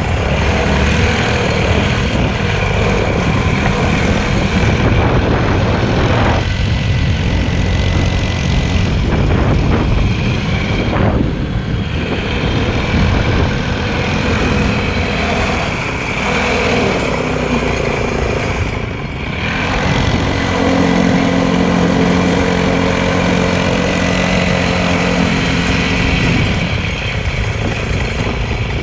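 Motorcycle engine running steadily, its pitch shifting now and then, with a couple of brief dips in level.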